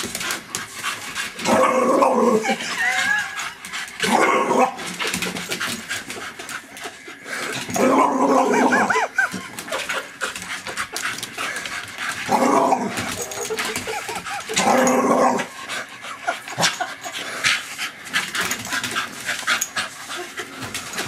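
Staffordshire bull terrier growling and barking in five short bursts, with fainter clicking and panting between them.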